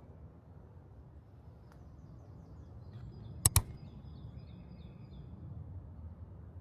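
Small birds chirping faintly in short repeated notes over a low steady outdoor rumble, broken about three and a half seconds in by two sharp clicks in quick succession.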